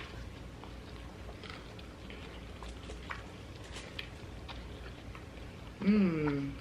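Faint chewing and small scattered clicks of people eating pizza at a table. A person's voice makes a short sound, falling in pitch, near the end.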